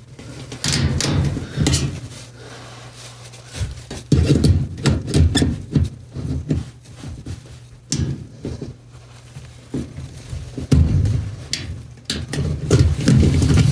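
Irregular knocks, clicks and rattles of hands working on a washing machine's hookup, in clusters with short pauses, over a steady low hum.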